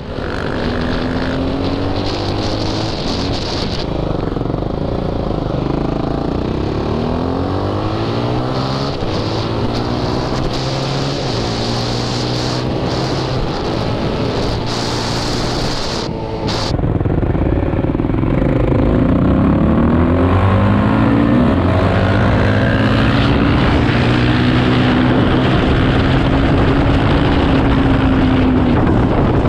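Quad bike engines under way, the revs climbing and falling back again and again as the ATVs accelerate along the road. About halfway through the sound gets suddenly louder.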